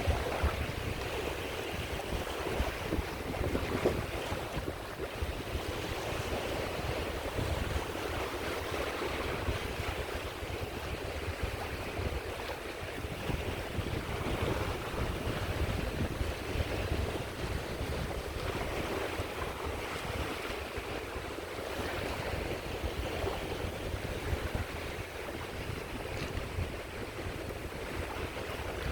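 Sea waves breaking and washing on the shore, with a steady low rumble of wind on the microphone.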